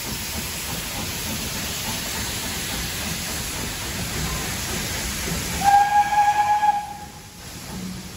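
Steam locomotives hissing steam as they move off with a train, then one steam whistle blast about a second long, nearly six seconds in.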